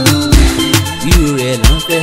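Music with a heavy, steady drum beat about twice a second under a bending melodic line.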